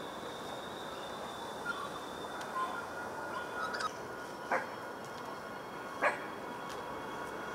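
A 4000-series electric railcar pulling slowly into a station at a distance, a steady low rumble of noise, with a few short chirps and two short sharp calls about four and a half and six seconds in.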